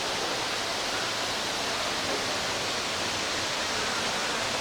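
Eaton Canyon Falls pouring into its pool: a steady, even rushing of falling water.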